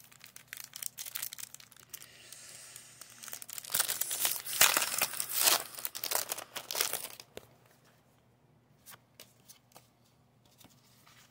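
Foil trading-card booster pack wrapper crinkling and tearing open, loudest from about four to seven seconds in, then a few faint clicks as the cards are handled.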